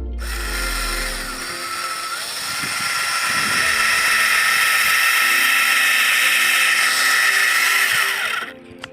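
Black & Decker 12 V cordless drill running at speed with a steady whine for about eight seconds, then winding down in pitch and stopping near the end.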